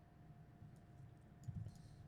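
Near silence: room tone with a faint steady hum and a few soft computer-keyboard keystrokes about one and a half seconds in.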